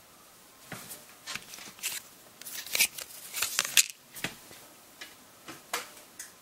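Cardboard Lego Ninjago trading cards being handled and slid over a plastic Lego baseplate: an irregular run of scrapes and light clicks from about a second in until near the end.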